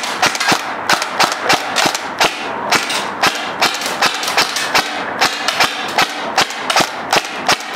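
Helios Umbrella Corporation M4 SBR airsoft rifle fired rapidly on semi-auto: a steady string of sharp shots, about three a second. The rifle is double-feeding and shooting at low power, which the owner suspects is a magazine issue.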